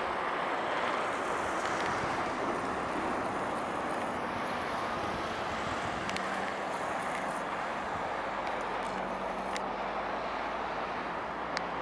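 Steady outdoor background noise, with a few faint clicks and a faint low hum that comes and goes in the second half.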